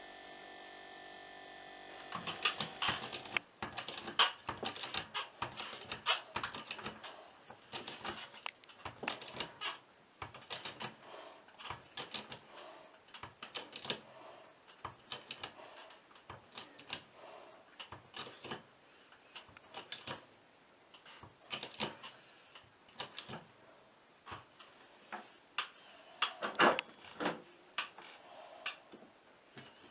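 A steady hum that stops about two seconds in, followed by irregular clicking and tapping of small hard objects being handled.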